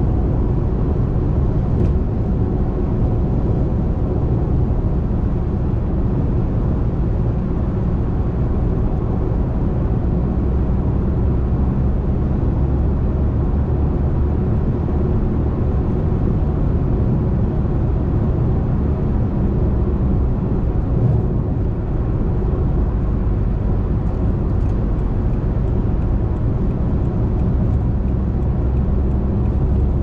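Steady low road rumble inside a car's cabin while driving: tyre and engine noise at an even level.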